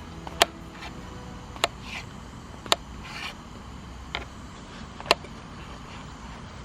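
A series of sharp, short knocks or taps, roughly one a second, over a low steady background rumble.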